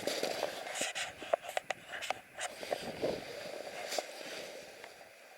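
Rustling and scraping with a string of sharp clicks, from an angler handling a small ice-fishing rod and line just after a bite. It dies away near the end.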